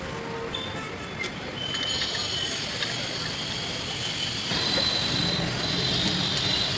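Light metallic clicks as wheel nuts are threaded onto a van's steel wheel studs by hand, over steady outdoor background noise with a thin, high, steady whine that grows louder about two seconds in.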